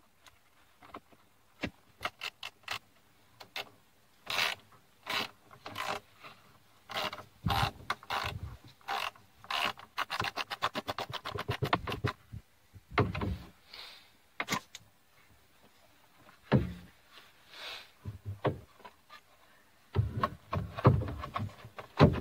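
Car parts and hand tools being handled during reassembly: scattered knocks, rubs and scrapes, with a fast, even run of clicks about halfway through.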